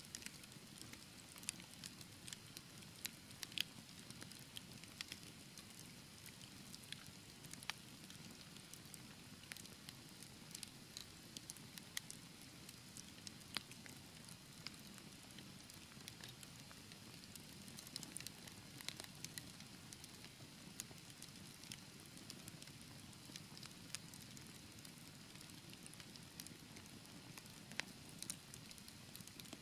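Wood fire in a fireplace crackling, with frequent sharp pops at irregular intervals over a low, steady rush of flame.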